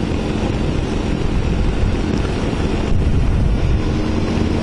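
Wind noise on the microphone of a motorcycle ridden at about 50 km/h, over the engine's steady running. The engine's even hum comes through more clearly near the end.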